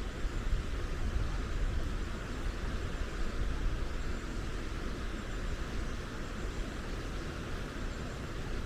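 Steady rushing of flowing water, with a low uneven rumble underneath.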